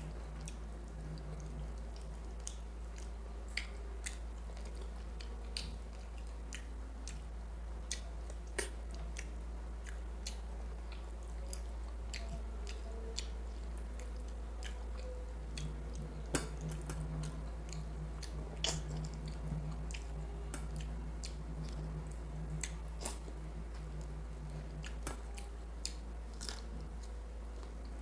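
Close-up chewing and wet mouth sounds of someone eating mutton curry with rice: irregular short, sharp clicks and smacks throughout, over a steady low hum.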